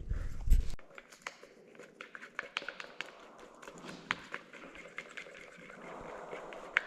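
Scattered light taps and clicks of small objects being handled, after a brief low rumble in the first second.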